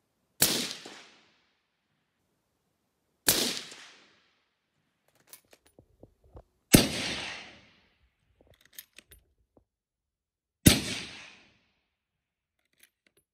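Four rifle shots from a Blaser R8 in .308 Winchester fitted with an A-tec H2 suppressor, spaced about three to four seconds apart, each sharp crack trailing off over about a second. Between shots come small clicks of the straight-pull bolt being cycled.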